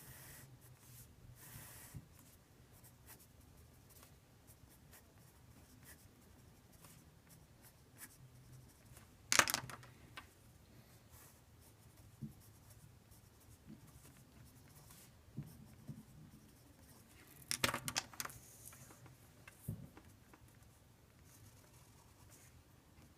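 Faint pen drawing and writing, with scattered light taps and scratches, as a beam and plot axes are sketched; two louder quick scraping strokes come about nine seconds in and again around eighteen seconds in.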